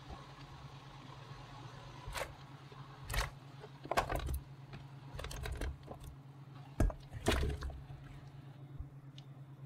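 Cut peach slices being tipped into a stainless steel pot of hot sugar syrup: several short plops and splashes as the pieces drop in, the loudest about four and seven seconds in, over a steady low hum.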